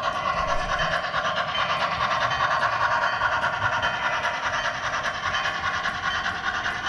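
HO-scale model train rolling along the layout's track, heard from a camera riding on a freight car: a steady rolling whir of metal wheels on rails with faint clicks at the rail joints.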